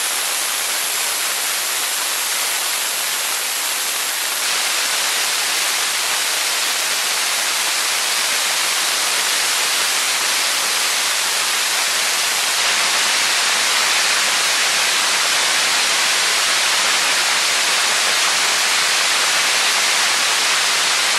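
Orenda 10 turbojet running: a steady, loud rushing jet roar that steps up slightly in level about four seconds in and again near thirteen seconds.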